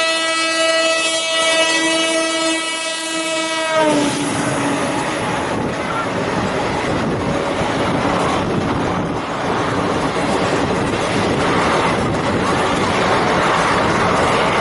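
WDM3A diesel locomotive honking its horn in one long continuous blast that drops slightly in pitch and cuts off about four seconds in. Then the express train runs past, a steady heavy rumble with wheels clattering over the rail joints.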